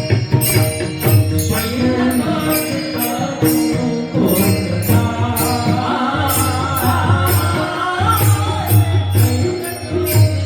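Devotional kirtan music: a voice singing a melodic line over a steady beat of small hand cymbals struck about twice a second and a low drum.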